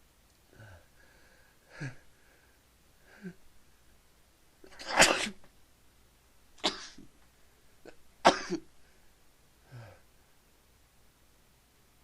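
A person sneezing three times in quick succession, the first and loudest about five seconds in, with short catching in-breaths before and after. The fit is set off by pepper in the nose.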